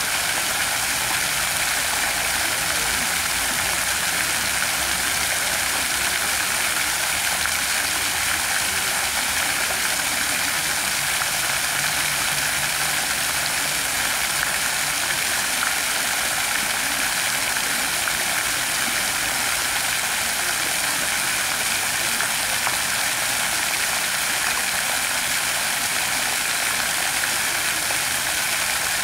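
Illuminated pond fountains, their many vertical water jets falling back onto the water in a steady, even rush of splashing.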